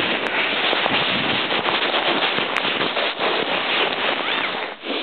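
Continuous loud crackling and rustling right at the microphone, with many irregular sharp ticks: handling noise from a small camera as it is carried over snow.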